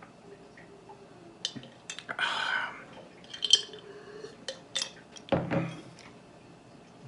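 Drinking from a glass mason jar: gulps and breaths with small clicks of glass. About five and a half seconds in, the jar is set down on a table with a thud.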